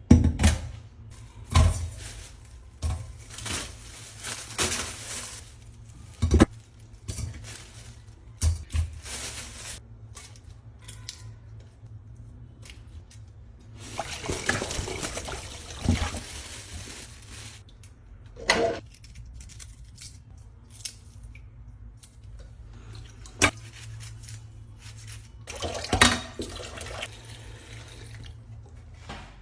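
Kitchen preparation sounds: water running at a sink, with scattered knocks and clatters of dishes and utensils.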